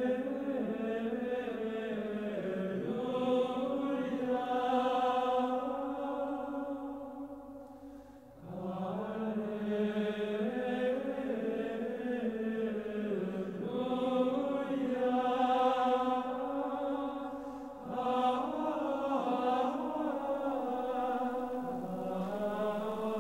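Chanted vocal music in long, slowly moving held phrases, breaking and starting again about 8 and 18 seconds in.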